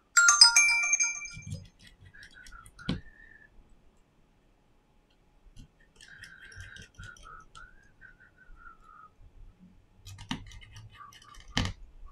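A bright multi-tone chime rings out loudly just after the start and fades over about a second and a half. Then a few sharp clicks of small tools on the phone's frame follow, with a faint wavering whistle-like tone between them.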